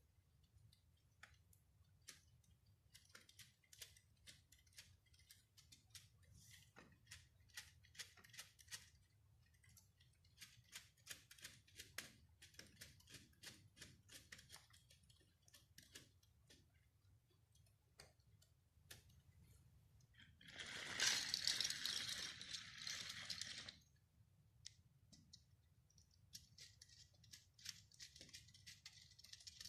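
Plastic LEGO Technic parts clicking and ticking in irregular runs, like small gears and track links working, with one louder whirring, rattling stretch of about three seconds some twenty seconds in.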